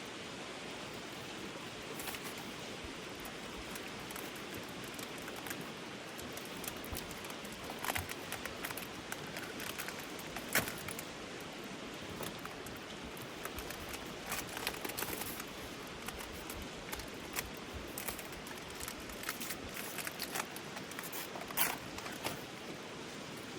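A stream flowing steadily, with scattered small clinks and knocks over it. The sharpest come about ten seconds in and near the end.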